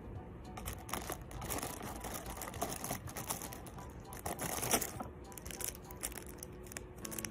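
Rustling and crinkling: a dense run of small crackles and scrapes from about half a second in until about five seconds in, loudest just before it dies down.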